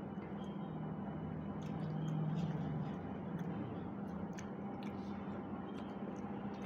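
People eating rice with their hands from steel pots: soft squishing of rice being mixed, chewing and scattered small clicks, over a steady low hum.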